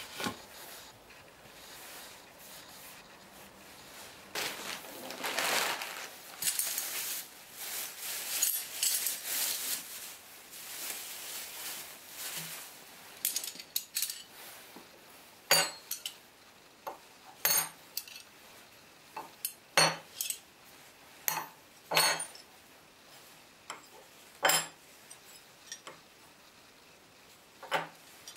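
Rustling and scraping handling noise, then steel plough plane irons clinking as they are set down one at a time on a wooden workbench: about eight sharp clinks, spaced a second or two apart, in the second half.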